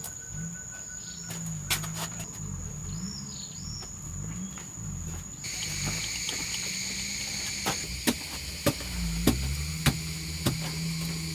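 Insects chirping steadily in a high-pitched chorus, with a short bird call a few seconds in. In the second half, a run of sharp knocks comes about every half-second to second.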